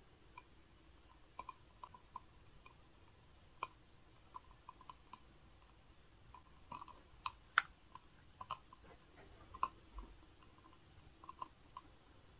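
Faint, irregular little clicks and crackles while a long-nosed lighter lights the wicks of a three-wick jar candle. They come a few at a time and are thickest in the middle of the stretch.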